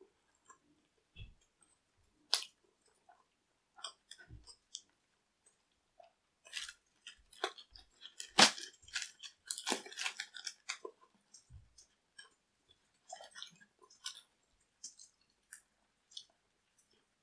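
Crisp thin pizza crust crackling and snapping as slices are torn apart by hand, with chewing. Sporadic crackles, thickest and loudest about halfway through.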